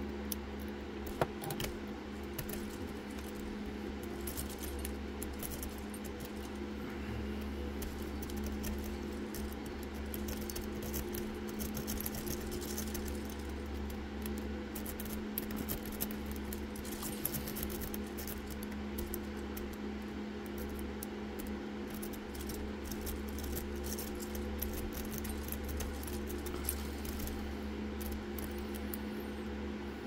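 Lock pick rake scraping and rattling over the pins inside the keyway of a Zeiss Ikon SK6 cylinder lock: a continuous run of small metallic clicks and scratches. A steady low hum runs underneath.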